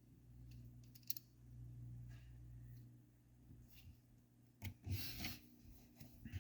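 Faint clicks and clinks of small metal engine parts being handled and set down on a workbench, with a low steady hum underneath.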